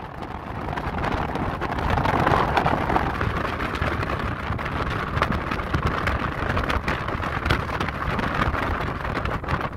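Wind rushing and buffeting over an open buggy travelling at highway speed, with the vehicle's running noise underneath. The gusts swell about two seconds in and stay loud.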